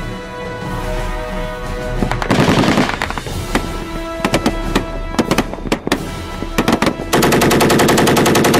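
Theme music with gunfire sound effects laid over it: a burst of rapid machine-gun fire about two seconds in, scattered single shots through the middle, and a long rapid machine-gun burst near the end that stops abruptly.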